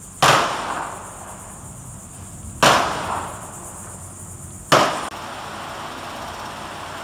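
Three gunshots from shooters at an outdoor firearm range, about two seconds apart, each with a trailing echo.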